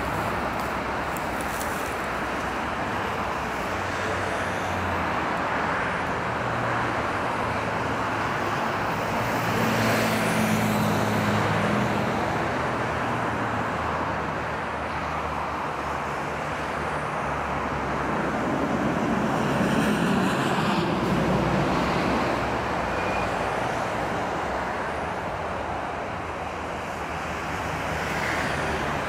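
Road traffic noise: a steady rush of passing vehicles with low engine hum, swelling slowly twice as vehicles go by.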